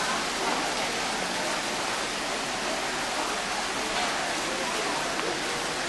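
A steady hissing noise with faint, indistinct voices of people in the background.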